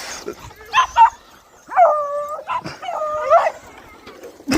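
Beagle giving voice: two short yips about a second in, then two drawn-out baying howls.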